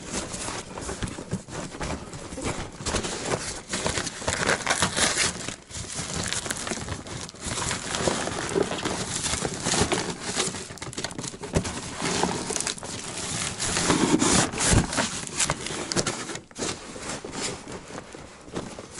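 A padded paper mailing bag being torn and crumpled off a cardboard box: continuous tearing, crinkling and crackling of paper, with rustling of the bag's loose filling.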